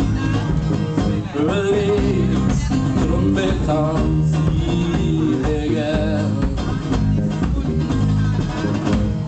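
Live band playing an instrumental passage: guitar and bass guitar over a steady beat.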